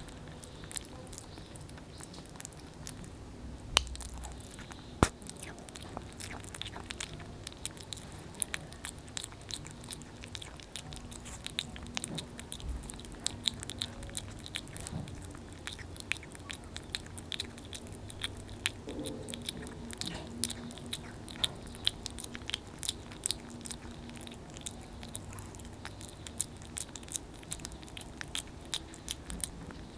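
A kitten chewing and lapping wet cat food close to the microphone: a steady run of small, irregular clicks and smacks, getting denser in the second half, with two louder clicks about four and five seconds in.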